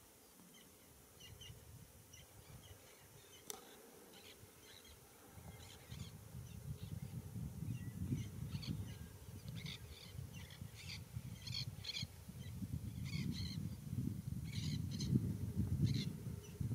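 Birds calling in quick series of short, high chirps, more of them in the second half. Under them a low, uneven rumble grows louder from about five seconds in, and there is a single sharp click at about three and a half seconds.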